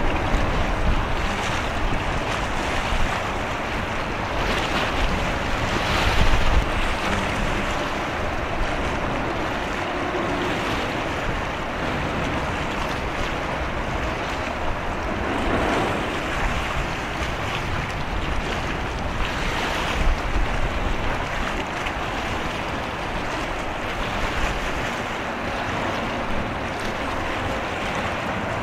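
Wind buffeting the microphone in gusts over a steady wash of sea and water noise.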